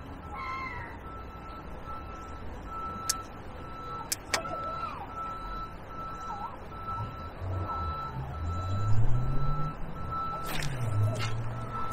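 A vehicle's reversing alarm beeping steadily, one tone repeating a little under twice a second, over a heavy vehicle's engine whose low note rises and falls as it manoeuvres. A few sharp clicks stand out, the loudest near the end.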